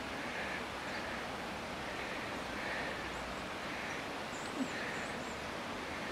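Outdoor ambience: a steady background hiss with a few faint, high bird chirps, clustered about four to five seconds in. A single short tap sounds about four and a half seconds in.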